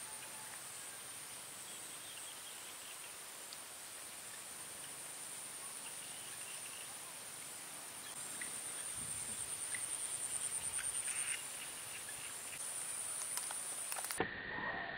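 Steady high-pitched insect chirring, pulsing quickly for a few seconds in the middle. Near the end it cuts abruptly to a lower steady insect tone with a few light ticks.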